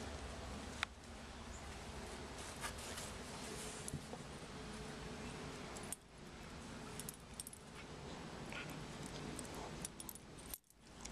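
Metal rings and tags on a dog's collar clinking now and then as the dog moves close to the microphone, a few short light jingles over steady background noise.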